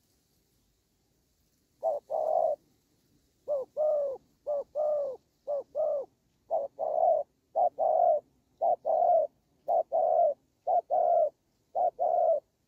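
Spotted dove cooing: about ten paired coos, a short note followed by a longer one, repeated roughly once a second, starting about two seconds in.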